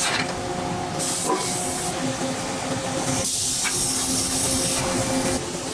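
Forging-shop machinery humming steadily, with several long bursts of hissing spray.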